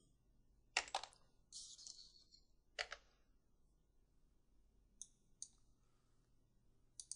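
Computer keyboard keys and mouse button clicks. There are a few sharper keystrokes and clicks in the first three seconds, then faint single mouse clicks, a pair about five seconds in and one near the end.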